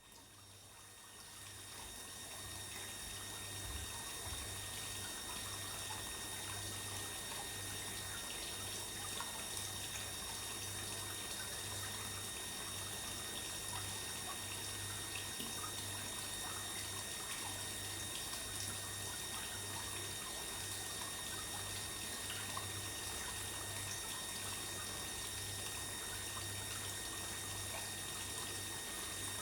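Water trickling steadily into a koi pond, fading in over the first few seconds, with a faint low hum pulsing on and off underneath.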